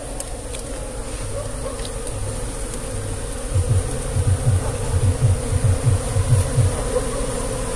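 Wild Asian honey bees (Apis cerana) buzzing steadily around their nest while it is being robbed of comb. A run of low, rapid thumps comes through the middle.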